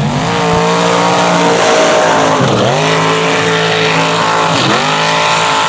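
Mud-bog vehicle's engine running hard at high revs through the mud pit. Twice the pitch dips sharply and climbs straight back up.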